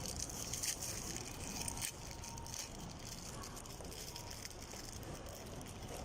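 A few light clicks and crackles of food and utensils being handled, over the steady background noise of a restaurant.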